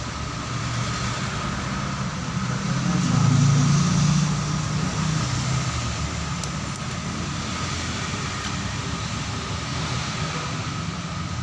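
Steady low background rumble of road traffic, swelling for a couple of seconds about three seconds in as a vehicle passes.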